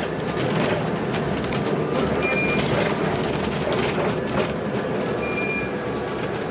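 Interior of a moving city bus: steady engine and road noise with rattling from the cabin. A short high beep sounds twice, about three seconds apart.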